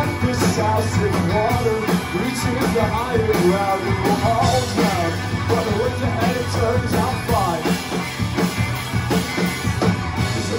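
A rock band playing live: a lead vocal sung over two electric guitars, an electric bass and a drum kit.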